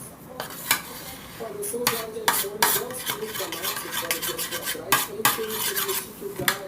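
A utensil stirring and scraping around a small bowl in repeated clinks and scrapes, mixing glue with a homemade salt-and-disinfectant activator into slime.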